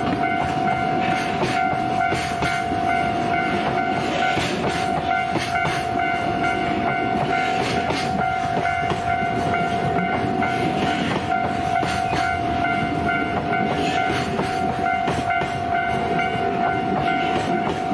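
Level-crossing warning bell ringing steadily over a train passing through the crossing, its wheels clattering over the rails.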